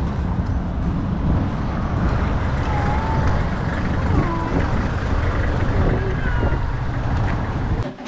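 Car driving, with a steady low rumble of engine and road noise heard from inside the cabin.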